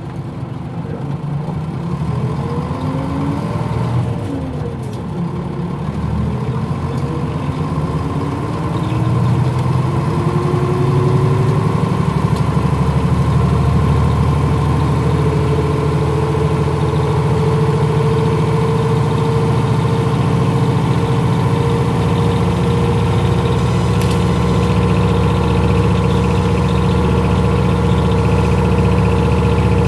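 Nissan Diesel KL-UA452MAN city bus diesel engine pulling away, heard from inside the bus. The engine note rises and falls a couple of times in the first several seconds through the gears, then gets louder and settles into a steady running note with road noise.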